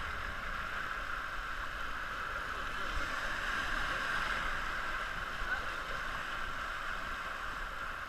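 Steady rush of river water running through small rapids around an inflatable raft.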